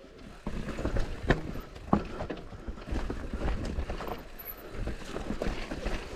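Intense Tazer MX e-mountain bike riding down a rough dirt trail: tyres rolling over dirt and roots with a low rumble, broken by irregular knocks and rattles from the bike as it bounces over the bumps.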